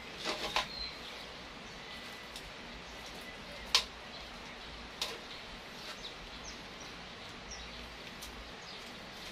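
Quiet outdoor yard ambience with faint bird chirps, broken by a few sharp clicks from handling the work on the table, the loudest about four seconds in and another about a second later.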